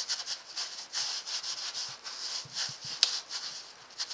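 A baby wipe rubbing and dabbing paint onto watercolor paper in repeated quick scrubbing strokes, with one sharp tap about three seconds in.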